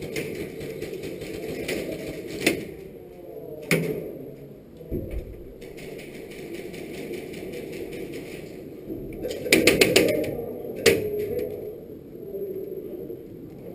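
Airsoft gun shots: a few single sharp cracks, then a quick burst of about five shots two-thirds of the way through and one more shot shortly after, over a rustling background.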